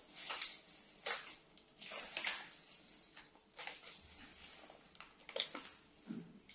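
Plastic bag and paper coffee packet crinkling and rustling as they are handled and opened. The sound comes as irregular crackles, about half a dozen louder ones, with softer rustling between.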